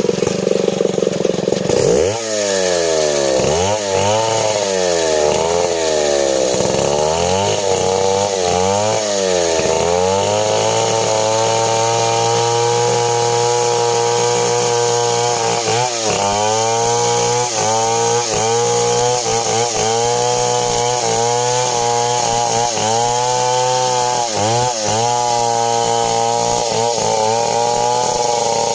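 STIHL 070 two-stroke chainsaw cutting through a coconut trunk. The engine pitch sags and recovers over and over as the chain bites, with a steadier stretch of running partway through.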